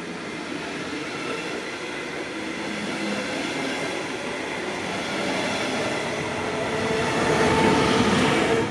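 A regional train of double-deck coaches, pushed by a DB Class 146 electric locomotive, rolls past as it pulls out, its wheels running on the rails. The sound swells toward the end as the locomotive draws near, with a steady electric drive hum rising out of the rail noise.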